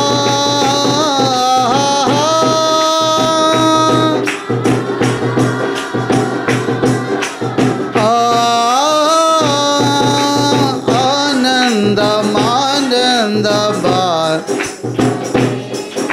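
Instrumental break of a Telugu Christmas song: a melody of held notes joined by short slides, over a steady percussion beat.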